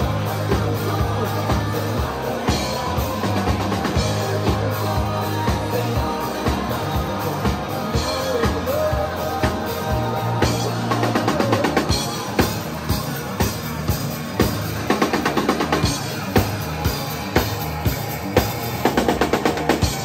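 Live rock band playing: electric guitar and bass over a drum kit. The drums get busier in the second half, with quick fills.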